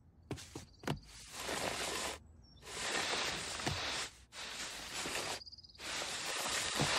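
Cartoon sound effects of a man inching up a wall with his body pressed flat against it. A few light taps come first, then four scraping strokes of about a second each as his body and clothes rub up the wall.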